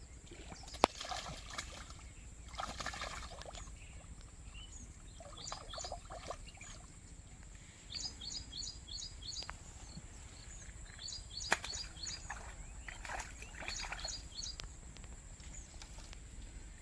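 Outdoor ambience: small birds chirping in quick runs of short, high, repeated notes, with several short bursts of splashing and two sharp clicks, one about a second in and one past the middle.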